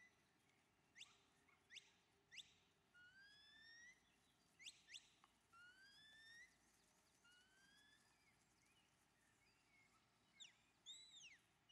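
Shepherd's whistle giving herding commands to a working border collie: several long rising whistles, quick falling chirps in twos and threes, and a few short arched notes near the end.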